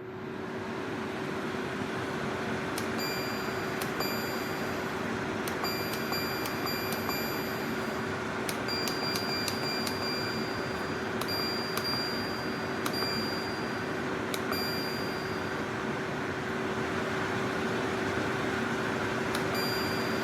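SereneLife 10,000 BTU portable air conditioner running, a steady fan whoosh with a steady hum. Short, high, chime-like tones sound over it again and again from a few seconds in until near the end.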